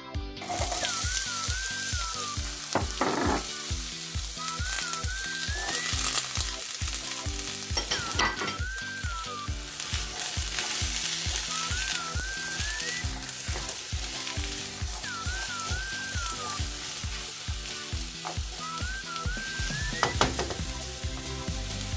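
Food sizzling as it fries in a hot pan, starting about half a second in and holding steady, over background music with a steady beat and a repeating melody.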